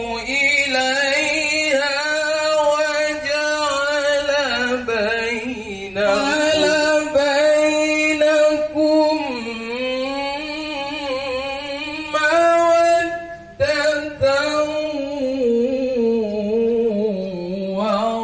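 A single voice chanting a Qur'an recitation in long, ornamented melodic phrases. Each phrase is held for several seconds while the pitch slides up and down, with short breaths between phrases.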